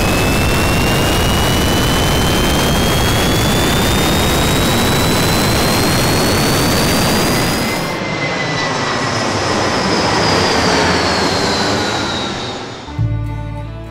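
Jet aircraft flying past: a loud, steady rush of engine noise with a whine climbing slowly in pitch. After about eight seconds the noise drops and the whine falls away as it recedes, and music starts near the end.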